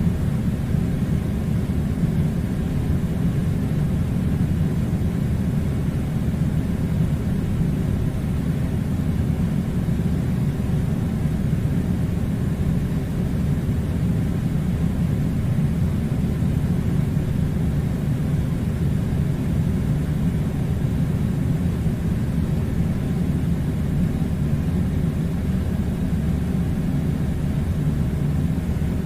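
Air conditioner running: a steady, unchanging low rumbling hum.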